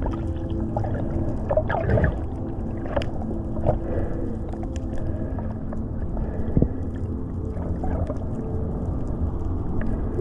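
Underwater ambience picked up by a camera in its waterproof housing: a steady low rumble of water with scattered clicks and crackles, and a faint steady hum that fades out about halfway through.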